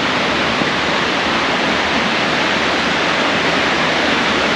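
Steady rush of fast-flowing floodwater.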